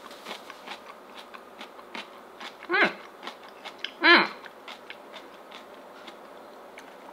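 Crunchy chewing of a mouthful of one-day-old napa cabbage kimchi, with small crisp clicks throughout, as the cabbage is still crunchy. Two short closed-mouth 'mm' sounds come from the eater about three and four seconds in; the second is louder.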